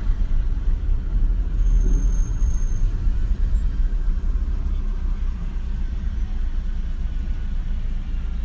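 Car driving, heard from inside the cabin: a loud, steady low rumble of road and engine noise.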